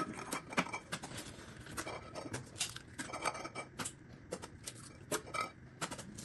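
Eggs being cracked one after another into a plastic mixing bowl: a quick, uneven run of sharp taps and clicks of shell against the rim.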